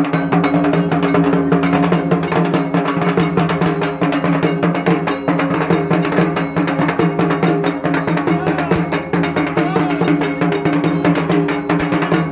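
Dhak drums beaten with sticks in a fast, continuous rhythm, with a steady ringing tone underneath.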